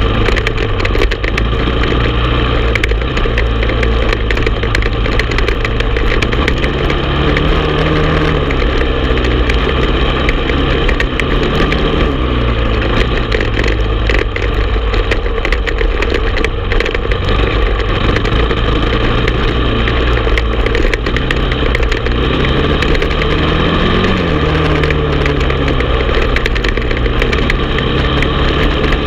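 Honda TRX450 ATV's single-cylinder four-stroke engine running under load as the quad rides a dirt trail, its pitch rising and falling several times as the throttle is worked, over steady wind and trail noise.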